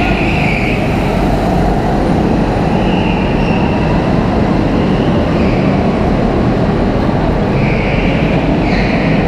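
Steady, loud rumbling drone of go-kart engines running and echoing in an indoor kart hall.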